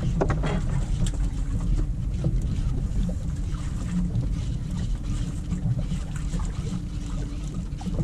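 Boat engine running steadily, a low rumble with a constant hum, under wind buffeting the microphone.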